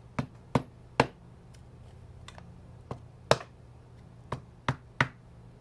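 Rubber mallet tapping on a cardboard tube to drive a new axle seal into the aluminium housing of a Tesla large drive unit. About eight sharp taps come in small groups, two of them louder than the rest.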